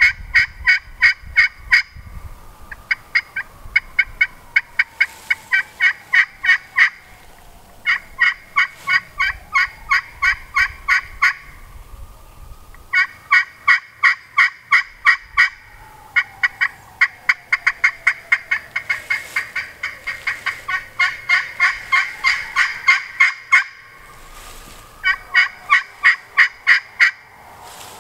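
Turkey pot call with a crystal playing surface over a carbon fiber soundboard, scratched with a dymondwood striker, making sharp popping turkey yelps. They come at about four to five notes a second, in runs of a few seconds with short pauses between.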